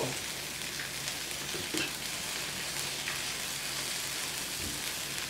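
Consommé-dipped birria tacos sizzling steadily as they fry on a hot cast iron griddle.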